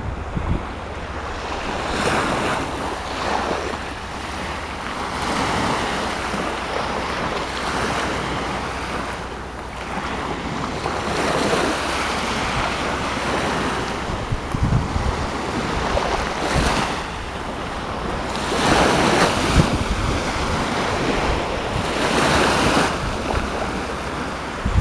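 Black Sea surf: waves breaking and washing ashore, swelling and falling back every couple of seconds, with wind rumbling on the microphone.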